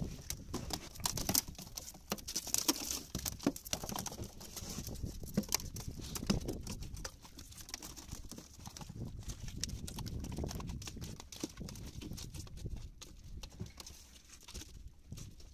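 A freshly landed mahi-mahi thrashing on a boat deck: rapid, irregular thumps and slaps, busiest in the first half, over wind and sea noise.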